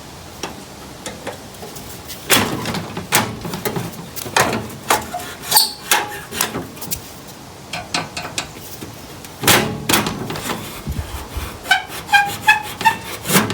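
Irregular knocks and metal clatter from hand work on a ride-on lawnmower's loose seat and its mounting bar, with a few short squeaks near the end.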